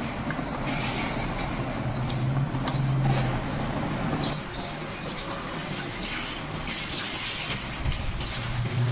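Milk poured in a steady stream into a large steel pot, splashing and filling, starting about four seconds in. Before the pour, a low steady hum.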